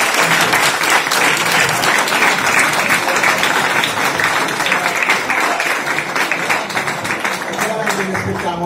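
Audience applauding, a dense clapping that begins to taper off near the end.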